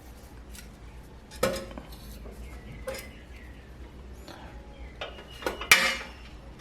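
Metal gas-stove parts clinking and knocking as they are handled and set in place: a few separate light clinks, the loudest near the end.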